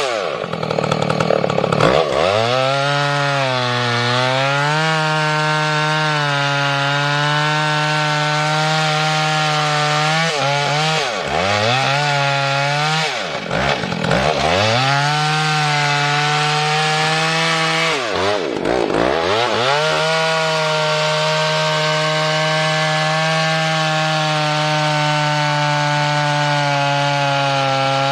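A vintage Husqvarna two-stroke chainsaw runs at full revs while cutting through a large log. Its engine note drops sharply and picks back up several times, then holds steady in the cut for the last few seconds.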